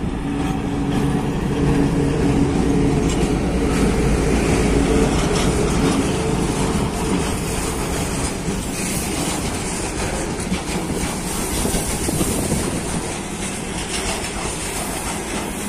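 A VL10 two-section electric locomotive passing close by with a steady low hum, then a freight train of hopper wagons rolling past from about seven seconds in, the wheels clacking over the rail joints.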